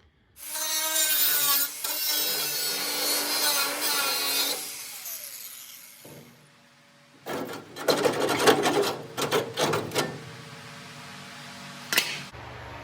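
Power tool cutting into car-body sheet metal for about four seconds, then winding down with a falling pitch. After a short lull come irregular bursts of metal scraping and knocks, and a single sharp click near the end.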